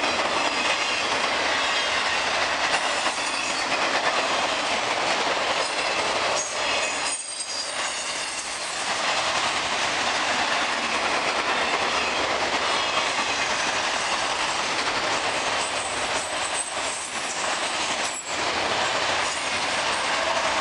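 Freight train of autorack cars rolling past close by: a steady rush of wheel and car noise on the rails, dipping briefly twice.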